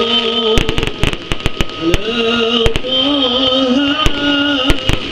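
Fireworks going off: a rapid, irregular run of sharp bangs and crackles from aerial shells bursting. A held, wavering melody carries on underneath.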